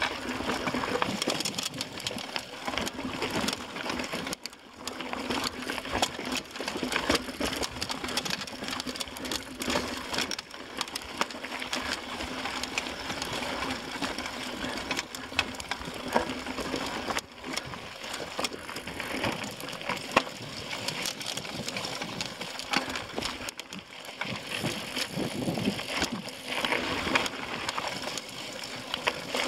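Mountain bike ridden over rocky dirt singletrack: tyres crunching over loose stones and the bike rattling, with frequent sharp knocks and clicks.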